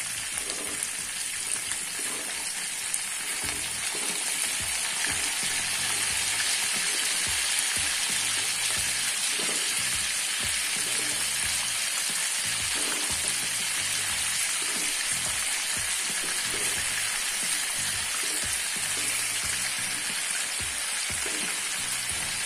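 Chicken pieces sizzling steadily as they shallow-fry in a little hot oil in a nonstick pan. Now and then a fork moves and turns the pieces over.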